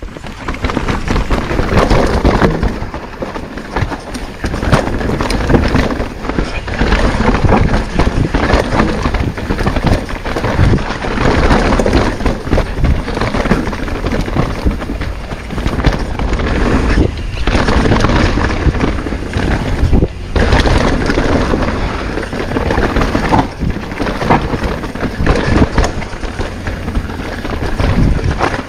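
Mountain bike riding down a rough dirt singletrack: tyres rolling on dirt and rocks and the bike clattering over bumps, with rushing wind on the microphone. The knocks come irregularly all through.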